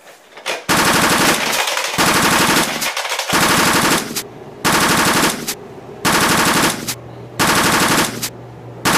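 Simulated machine-gun fire in short bursts, about seven of them, each under a second long with brief pauses between.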